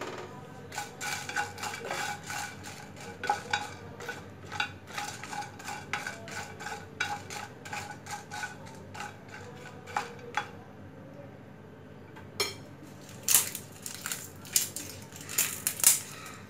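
A plastic spatula stirring whole cinnamon bark, cardamom pods and dried red chillies around a nonstick pan as they are toasted until just crisp for a spice mix. The spices rattle and scrape in quick strokes, pause briefly, then come a few louder knocks near the end.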